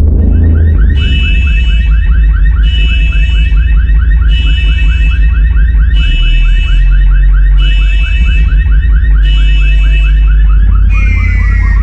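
Bass-boosted electronic test track: a heavy, continuous sub-bass under a fast, alarm-like synth warble of rapid repeating chirps, with a higher electronic tone pulsing in about every second and a half.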